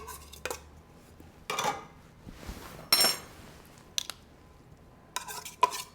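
Kitchen utensils and cans knocking and scraping against a mixing bowl as canned chicken is emptied in: a few separate clinks and knocks, with one ringing metallic clink about three seconds in.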